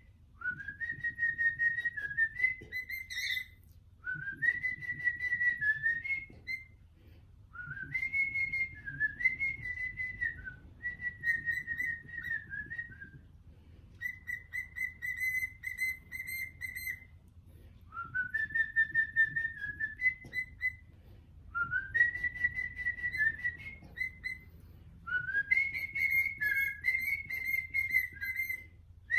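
Cockatiel whistling in a string of short phrases, each sweeping up into a high held note with little warbles and rapid repeated notes, with short pauses between phrases.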